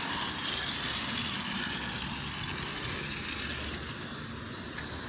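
Hand-pumped pressure spray bottle spraying water over potting soil: a steady hiss that slowly gets quieter.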